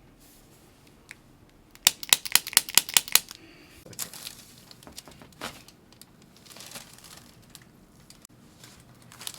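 A quick run of about ten sharp cracks in under a second and a half during a chiropractic adjustment, followed by a few fainter scattered clicks and crinkling.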